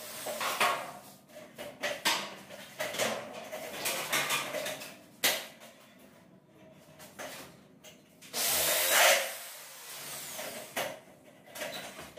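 Power drill briefly driving a screw into light-gauge steel stud framing, a loud burst of about a second a little past eight seconds in, amid scattered knocks and clicks of the metal framing being handled.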